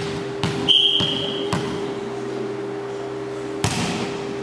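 Volleyball play in a sports hall: a referee's whistle blast of under a second, with a couple of thuds of the ball on the floor around it. About three and a half seconds in comes a sharp slap of the ball being served. A steady hum of the hall runs underneath.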